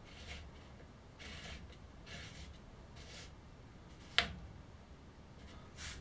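Hands handling a braided stainless-steel flexible hose as it is fitted to a water pump's pressure tank: a few soft rubbing, rustling noises, then one sharp click about four seconds in and a short hiss near the end.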